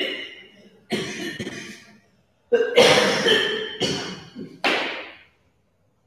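A person coughing several times in a row: about four harsh bursts, each starting suddenly and dying away, roughly a second apart.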